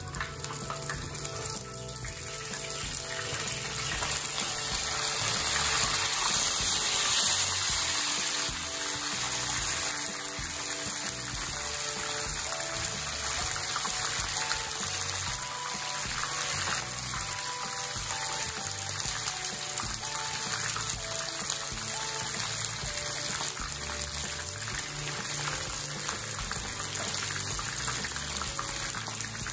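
Cornstarch-coated chicken wing pieces frying in hot oil in a pan, a dense steady sizzle. It swells a few seconds in, then settles to an even sizzle: the second fry that crisps the chicken.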